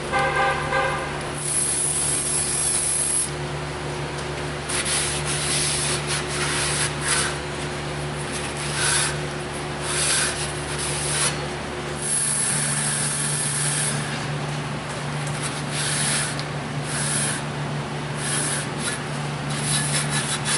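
A shop rag rubbing over a new brake rotor in repeated bursts of wiping strokes, cleaning the protective oil off its surfaces. A brief whir comes first as the rotor's retaining screw is driven in.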